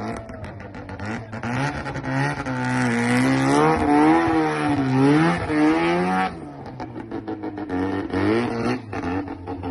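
Mazda rotary engine revved hard for a skid: it climbs from a choppy idle about a second and a half in, holds high revs with the pitch wavering up and down, then drops back to a lumpy idle a little after six seconds.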